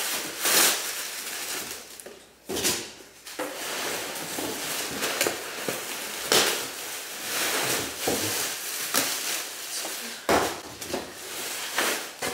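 Clear plastic bags crinkling and rustling as wicker baskets are pulled out of them and out of a cardboard box, with several sharper, louder crackles.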